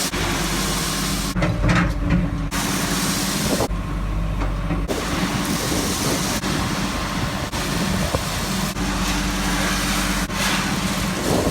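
Loud, steady engine noise from heavy vehicles or machinery: a low hum under a broad hiss, changing abruptly several times in the first few seconds.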